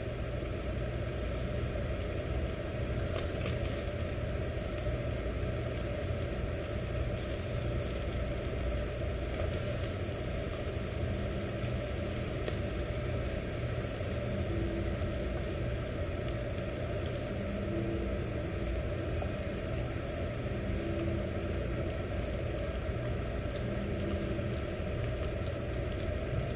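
Steady low hum and rush of ventilation, the kind of fan that draws smoke from a yakiniku table grill, with no change throughout.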